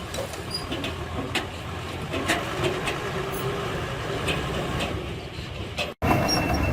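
Diesel engine of heavy earthmoving machinery running steadily, with a few sharp clanks over it. About six seconds in the sound cuts out for an instant and comes back louder.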